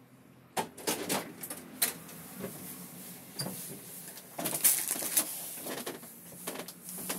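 A run of irregular clicks, taps and rustles close to the microphone, like a phone being handled. It starts about half a second in and is loudest near the middle.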